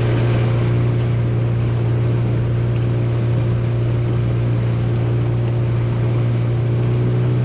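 Boat engine running steadily at one constant pitch as the outrigger boat cruises, with water rushing past the hull.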